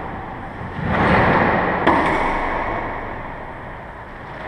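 A short rush of noise, then a single sharp knock that rings in the squash court, about two seconds in.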